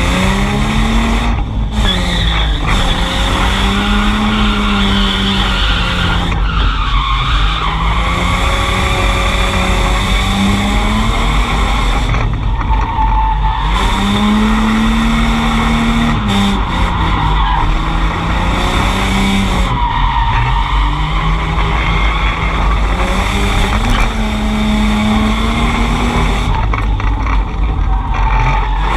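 Drift car engine revving up and falling back in repeated swoops every few seconds, with tyres squealing and skidding as the car slides sideways.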